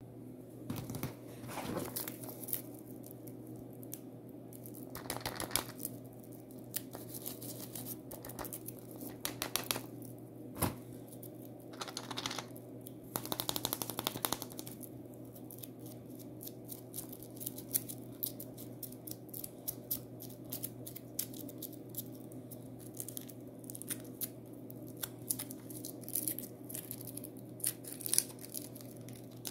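Foil-wrapped Kinder chocolate eggs rustling and clicking as they are handled, and the thin foil wrapper crinkling and tearing as it is peeled off an egg. A steady low hum runs underneath.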